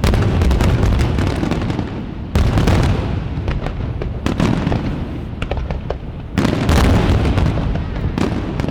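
Aerial fireworks shells bursting at very close range: three heavy booms, at the start, a little over two seconds in and about six seconds in, each followed by a long deep rumble and dense crackling.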